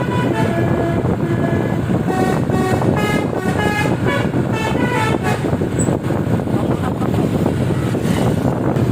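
Bus telolet horn, basuri air horns driven by a melody module, playing a tune of short stepped notes that stops about five and a half seconds in. A steady rumble runs underneath.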